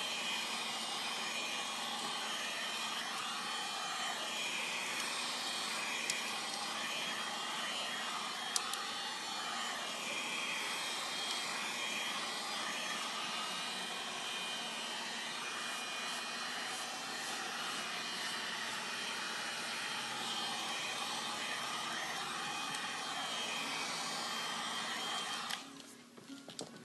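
Hair dryer running steadily, blowing hot air over freshly applied leather dye to dry it. The rushing sound wavers slowly and cuts off near the end.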